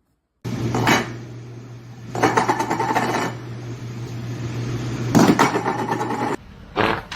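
Repeated knocking and clattering over a steady low hum, cut off sharply about six seconds in.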